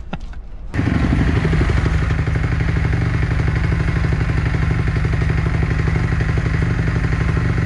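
Single-cylinder four-stroke engine of a Kawasaki factory motocross bike idling steadily. It comes in suddenly about a second in and holds an even, unrevved beat.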